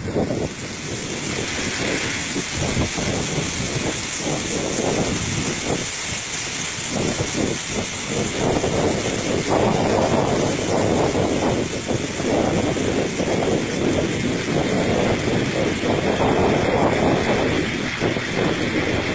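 A vehicle or machine engine running steadily, growing a little louder about nine seconds in.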